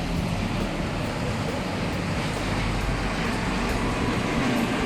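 Steady traffic and street noise with a low rumble.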